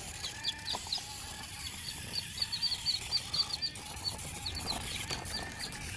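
Small birds chirping, with many quick high chirps in irregular runs over a faint background hiss.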